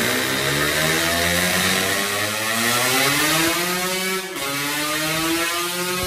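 Yamaha RXZ two-stroke single-cylinder engine under full throttle on a dynamometer run. The revs climb steadily, drop sharply at a gear change about four seconds in, then climb again.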